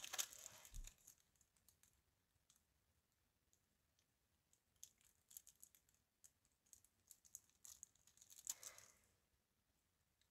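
Near silence with faint, scattered light clicks and taps, a soft rustle and low bump in the first second, and another brief rustle near the end.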